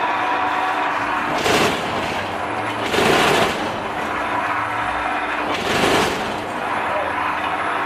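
Semi-manual paving block press machine running with a steady motor hum, and three louder bursts of rapid mechanical rattling, each about half a second long, as its vibration works the mould.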